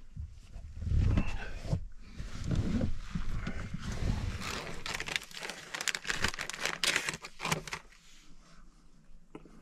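Rustling and shuffling of clothing and bedding as a person moves about on a bed in a small truck-camper space. There are soft thumps in the first half and a run of short sharp clicks and rustles in the middle.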